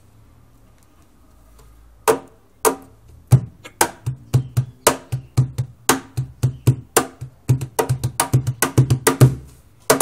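Wooden cajón played with the hands: after about two seconds of quiet, a fast rhythm of deep bass strokes and sharp slaps, stopping near the end.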